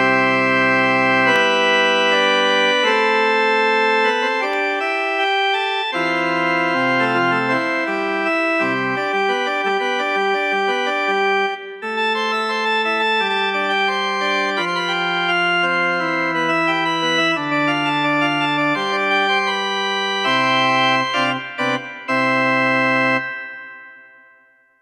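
Hammond SK PRO organ synthesizer playing a drawbar organ preset: sustained chords that change every second or so. It ends on a held chord that is released near the end and fades out.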